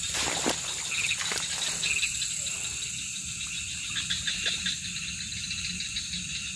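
Night chorus of crickets and frogs: a steady high trilling with a fast pulsing call over it, two short chirps in the first two seconds, and a few rustles at the start.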